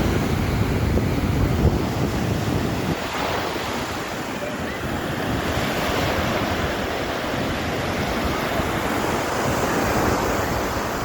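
Sea surf rushing and washing steadily, swelling and easing. Wind rumbles on the microphone for the first three seconds or so.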